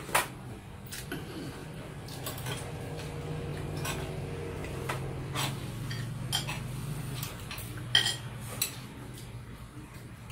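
A spoon and snail shells clinking against a plate, a dozen or so separate sharp clicks spread out over several seconds, over a low steady hum.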